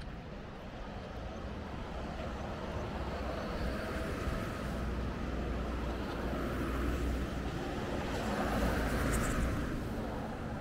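City street traffic: a steady wash of vehicle noise with a low engine hum, swelling as traffic passes, loudest about nine seconds in before easing off.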